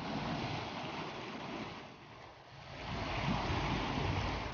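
Sea waves washing against shore rocks: the wash swells, eases off about two seconds in, then surges louder again, with a low rumble underneath.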